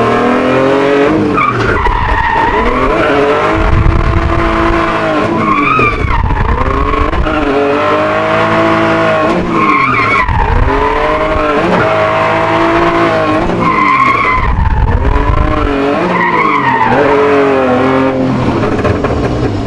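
BMW E46 drift car's engine revving up and falling back about six times, with tyres skidding and squealing as the car is thrown side to side in manji slides.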